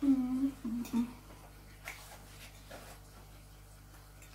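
A woman humming "mmm" with her mouth closed while chewing a mouthful, in a few short held hums over about the first second, an appreciative sound of enjoying the food. After that only a couple of faint clicks.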